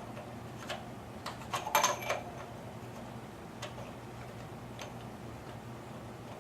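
Light clicks and taps as a propeller spinner is fitted and started onto its threads by hand on the prop hub, with a louder cluster of several clicks about two seconds in and a few single ticks after. A steady low hum runs underneath.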